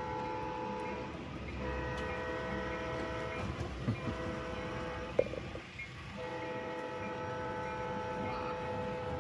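Sound-equipped large-scale model diesel locomotive blowing its multi-note air horn: a series of long, steady blasts with short breaks between them. Under the horn is a low rumble of the train running on the track.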